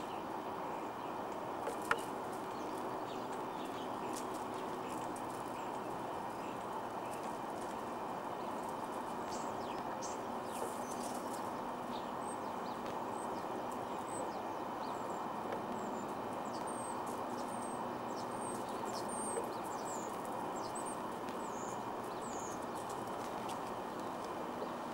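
Small birds chirping in short, high, repeated notes through the middle and latter part, over a steady background hiss, with a few faint clicks and one sharp tick about two seconds in.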